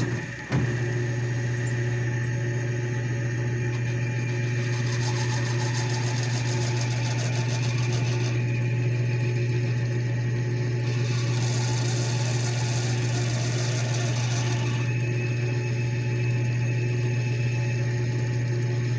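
Lathe running steadily with a strong low hum that starts about half a second in; the higher noise over it grows and fades in the middle.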